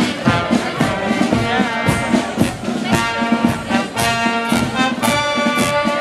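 Marching brass band playing a tune in the street, held brass chords over a regular drum beat.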